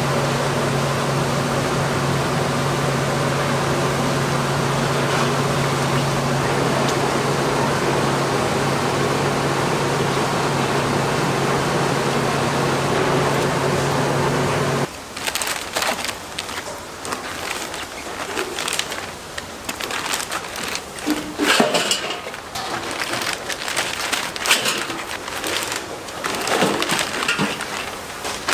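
A steady hum and hiss of kitchen equipment over a large kettle of simmering broth, cutting off about halfway. Then wooden skewers of fish cakes clatter and click irregularly as they are handled in a steel bowl.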